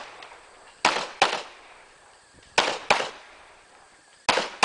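Shotgun fired in three pairs of quick shots, the two shots in each pair about a third of a second apart and the pairs roughly a second and a half apart. Each report is sharp and loud with a short echoing tail.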